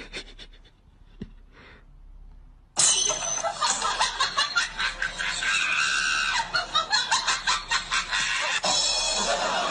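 A person laughing loudly in quick repeated bursts, starting suddenly about three seconds in after a quiet start.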